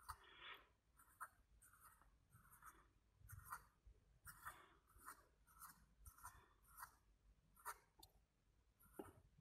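Faint scratching of a pen on paper, a string of short shading strokes about two a second.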